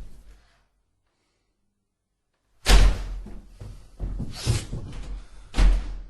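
A sudden loud bang about two and a half seconds in, then rattling and knocking, with another heavy bang near the end.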